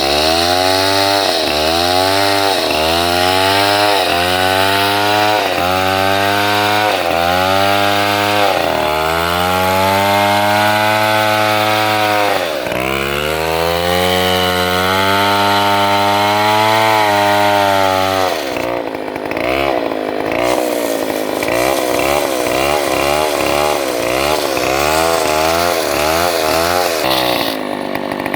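Two-stroke chainsaw ripping lengthwise through a log, the engine bogging under load and picking back up about once a second, then holding steadier for several seconds at a time. Past the middle it runs at a lower pitch with quick, repeated dips.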